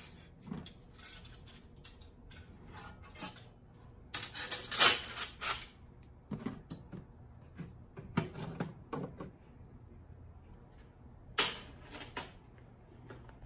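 Metal clattering and scraping as a honeycomb laser-cutter bed and an aluminium slat frame are slid out of the machine: scattered knocks and rattles, busiest and loudest about four to five and a half seconds in.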